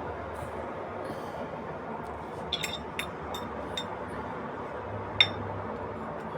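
Kitchenware clinking: a few light clinks between about two and a half and four seconds in, then one sharper, louder clink about five seconds in, over a steady background hiss.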